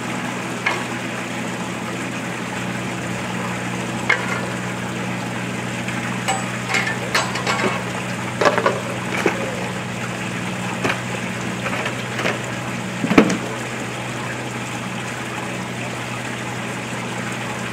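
Rake scraping and spreading gritty Aquaphalt cold-patch asphalt mix across a pothole, with more mix tipped in from a plastic bucket: scattered scrapes and clicks, the sharpest about two-thirds of the way through. A steady low engine hum runs underneath.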